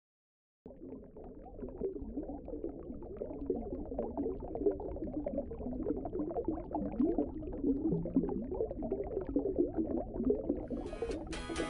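Muffled churning, bubbling water, dull and cut off in the highs. A strummed guitar music track comes in near the end.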